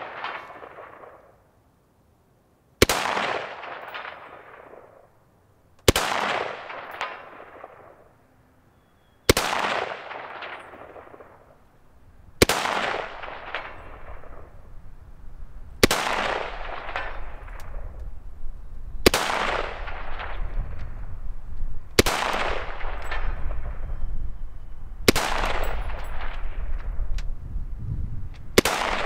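Romanian WASR-10 UF underfolder AK rifle in 7.62×39 firing slow, single aimed shots: nine shots about three seconds apart, each followed by a long fading echo.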